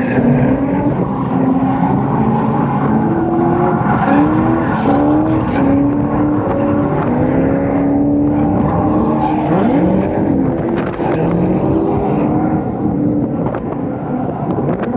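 Drift cars' engines revving hard on track, their pitch repeatedly rising and falling as the drivers work the throttle, with more than one engine heard at once.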